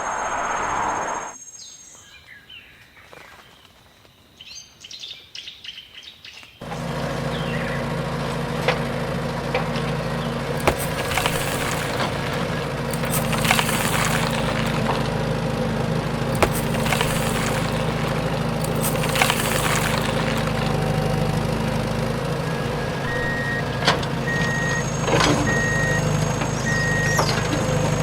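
A heavy vehicle engine runs with a steady low drone, starting after a quiet few seconds, while birds chirp over it. Four short high beeps sound near the end.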